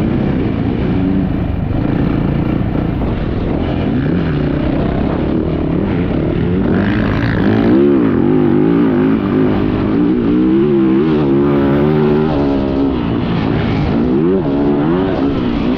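Yamaha YZ450F motocross bike's single-cylinder four-stroke engine ridden hard, its pitch rising and falling repeatedly as the throttle is opened and closed through the track.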